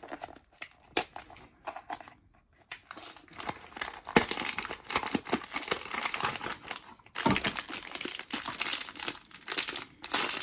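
Blind-box packaging being opened by hand: a few light clicks at first, then crinkling and tearing of the wrapper after a few seconds, with a short break about two-thirds of the way through.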